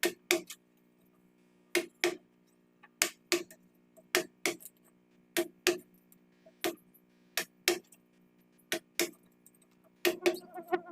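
Background music with a sparse ticking beat: pairs of sharp clicks about every second and a bit, over a few soft steady tones.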